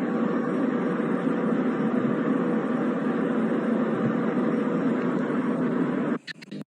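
Steady rumbling noise with no separate booms, cutting off suddenly about six seconds in, followed by a few faint clicks.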